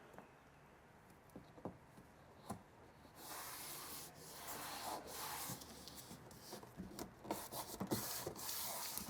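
Hands rubbing wet water-activated paper tape down onto a cardboard seam, a dry rubbing sound that starts about three seconds in, with small taps and ticks.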